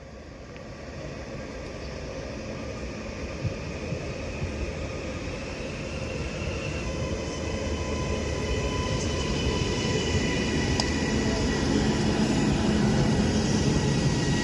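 Northern Class 331 electric multiple unit approaching and running into the station, a low rumble that grows steadily louder throughout, with a faint high whine joining in from about halfway.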